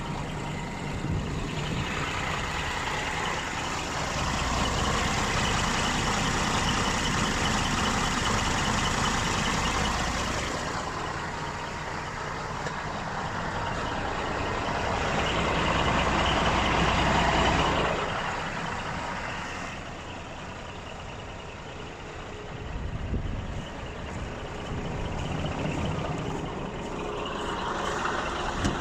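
Heavy diesel truck engine running, its noise swelling louder twice and falling away again.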